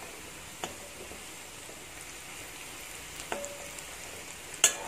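Sliced onions and garlic sizzling steadily in hot coconut oil in a metal wok as they start to brown, with a metal spoon stirring and knocking against the pan three times, the last knock the loudest, near the end.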